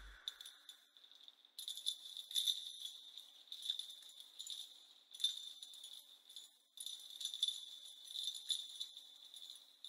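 Jingle bells shaken softly in loose, irregular bursts, alone in the closing bars of an ambient music track; a low drone cuts off right at the start.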